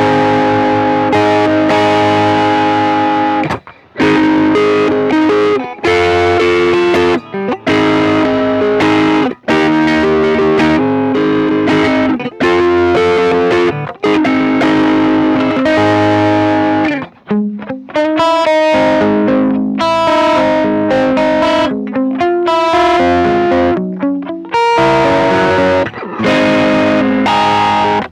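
Electric guitar played through a pedal chain of a Ross compressor reissue, a Tube Screamer and a Stone Deaf PDF-2 with its built-in distortion switched on. Distorted chords ring out with long sustain, broken off by short pauses between phrases, with a quick run of picked notes about two thirds of the way in.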